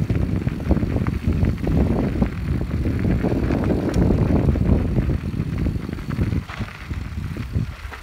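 Mountain bikes rolling fast down a dirt and gravel trail: a dense rumble of tyres on the ground with frequent rattles and knocks over bumps, easing off somewhat near the end.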